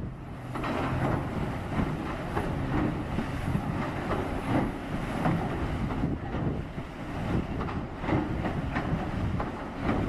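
Caterpillar hydraulic excavator running as its bucket churns snow and ice in river water, with irregular splashing and knocks of ice chunks over a steady low engine rumble.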